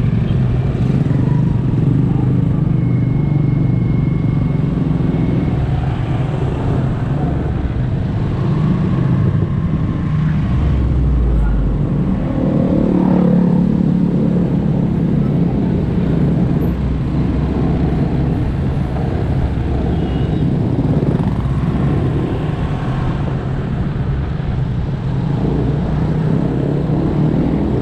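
Motorcycle engine running steadily while riding, with road and wind noise; a deeper rumble swells briefly about midway.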